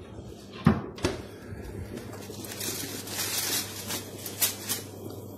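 Aluminium foil crinkling and rustling as it is handled over a baking dish, with a single knock of cookware just under a second in.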